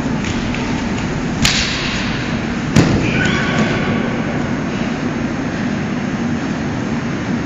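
Wrestlers grappling on a mat: a sharp knock, then about a second later a louder, deeper thud as the two bodies go down onto the mat in a takedown, over steady room noise.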